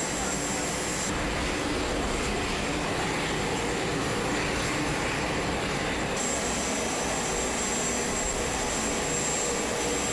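Aircraft engine running on a flight line: a steady roar with a thin high whine, which drops out for about five seconds from a second in.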